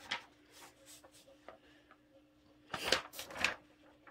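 Large glossy paper pages of a photo booklet rustling as they are handled and turned, with a few faint soft clicks before a louder crinkling stretch about three seconds in.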